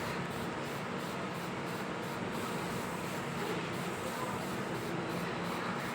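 Steady background hiss with no distinct events, a room or electrical noise floor.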